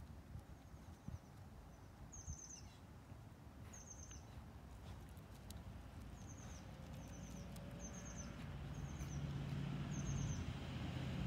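A small songbird calling over and over, each call a quick run of three or four high chirps, repeating every second or two. Under it a low rumble and hum builds toward the end.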